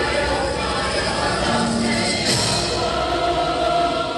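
Music with choir-like singing, voices holding long notes over a dense backing.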